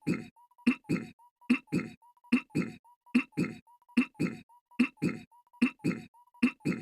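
Goofy's cartoon voice clearing his throat, a quick two-part throat-clear repeated in a tight loop, about once every second.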